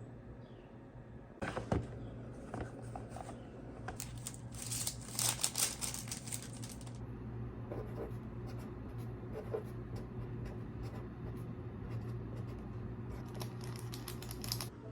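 Rustling, crinkling and clicking of paper and plastic packaging being handled while sticker orders are packed, with a dense crinkly stretch about four to seven seconds in and another just before the end.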